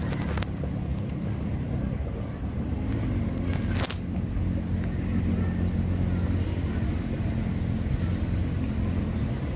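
Steady low engine hum, with one sharp click a little under four seconds in.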